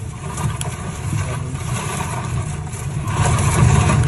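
Storm noise heard from inside a car as a tornado passes nearby: a steady low rumble with a hiss of wind and rain, growing louder about three seconds in.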